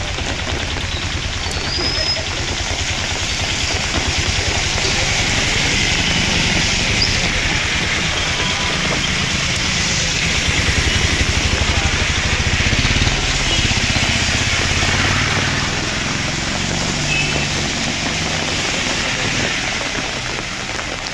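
Vehicle engines running on a flooded street, a low pulsing rumble under a steady hiss of rain and water.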